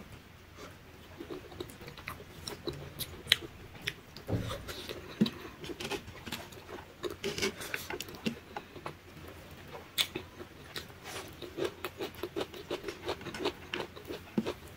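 Close-up eating sounds: a person chewing mouthfuls of rice and curry with wet mouth clicks and smacks, while fingers mix rice on a plate. There is one dull thump about four seconds in.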